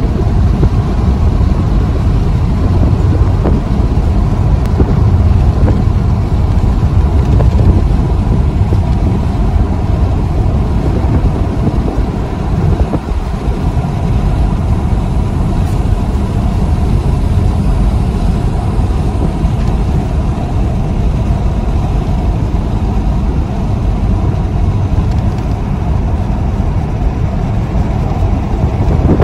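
Steady road noise of a car driving at highway speed, heard from inside the cabin, with a low rumble of tyres and engine throughout.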